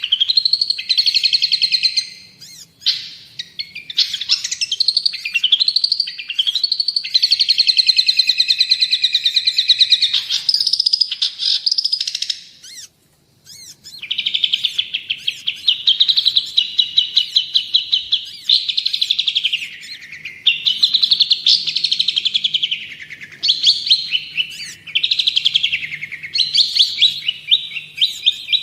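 Long-tailed shrike (cendet) in full, vigorous song: fast trilled runs of rapidly repeated notes mixed with rising and falling whistled sweeps. The song breaks off briefly a little before halfway.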